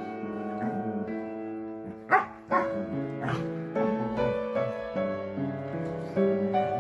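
A dog gives about three short barks two to three and a half seconds in, during rough play between two dogs, over gentle piano music.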